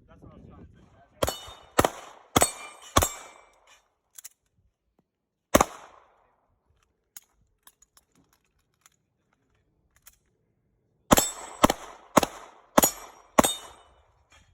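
Gunshots in a shooting drill: a string of four quick shots about half a second apart, one lone shot a few seconds later, then a string of five quick shots near the end.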